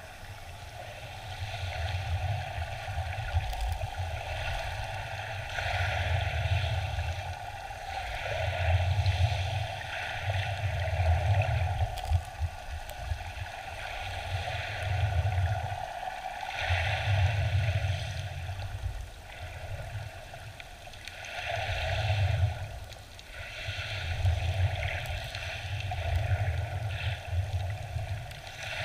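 Shallow sea water heard underwater through a camera housing: a muffled, deep rushing that swells and eases every two to three seconds as the water surges.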